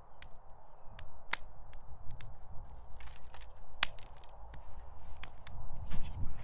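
Scrap-wood fire in a fire pit crackling, with irregular sharp snaps and pops; two louder cracks come about a second in and just before four seconds in.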